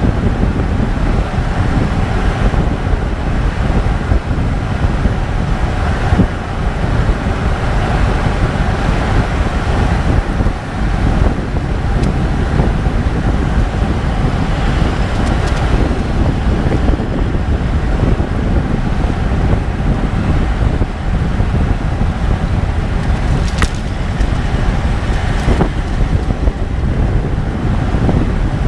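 Steady road and wind noise from a 2014 Range Rover Sport SDV8 on the move, with wind rumbling on the microphone. A handful of sharp clicks stand out, several seconds apart: the unexplained clicking the owner notices when driving at low speeds.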